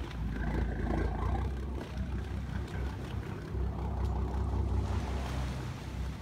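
Inboard engine of a motor yacht idling as it manoeuvres at low speed, a steady low drone.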